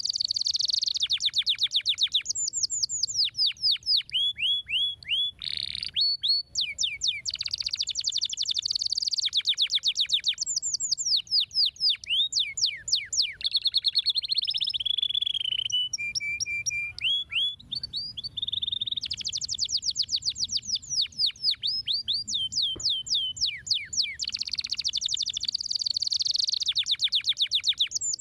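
Canary singing a long, continuous song of fast trills made of rapid repeated chirps, broken by a few held whistled notes near the middle.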